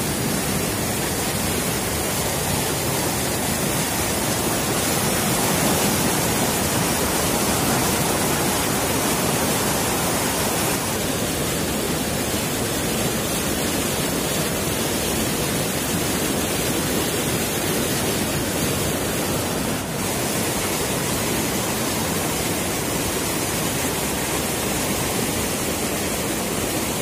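Fast, murky river rushing over rocks in rapids: a steady, unbroken rush of water.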